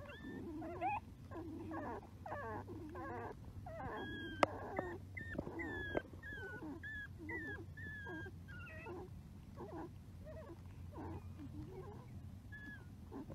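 Young puppies squeaking and whimpering while they nurse: a steady string of short high squeaks mixed with lower grunts, with one sharp click about four seconds in.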